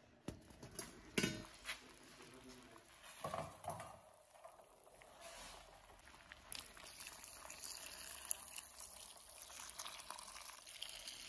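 Stainless steel pot lid knocking and clattering as it is handled and lifted off, a few sharp knocks in the first four seconds. About six seconds in, a stream of water starts pouring into the pot of lamb pieces and runs on steadily.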